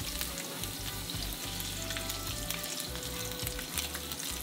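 Mutton snapper fillet frying in hot oil in a nonstick pan, freshly laid in: a steady sizzle with fine crackles.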